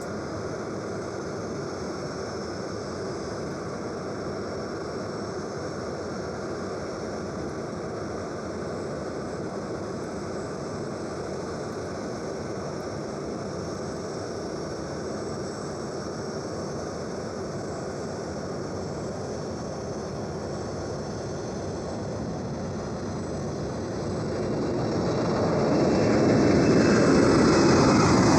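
Jet aircraft engines running as a steady, even noise, which swells louder near the end as an aircraft draws closer, with a faint falling pitch as it passes.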